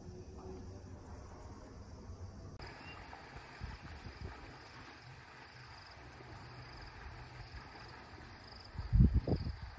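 A quiet room hush for the first couple of seconds. Then an outdoor ambience of insects chirping in a steady, pulsing rhythm over a low rumble. Near the end there is a loud, low buffeting rumble lasting about half a second.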